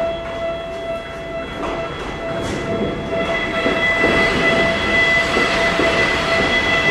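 Electric railcar of the Fukui Railway Nanetsu Line at a station, with a steady whine throughout. About three seconds in, the train's running noise grows louder, with wheel clatter on the rails.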